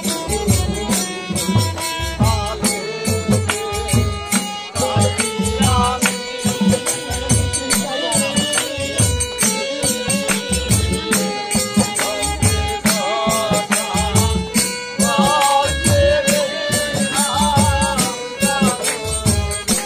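Live Bengali bicched gaan folk song: a singer's wavering voice over long held instrumental tones and a steady drum beat of about one and a half strokes a second.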